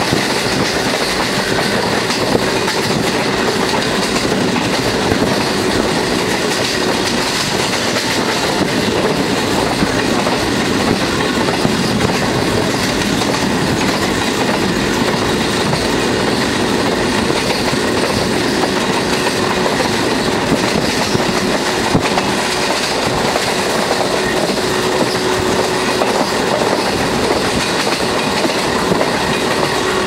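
Express passenger train running at speed, heard from a coach window: a steady rush of wind and running noise, with the wheels clicking over the rail joints.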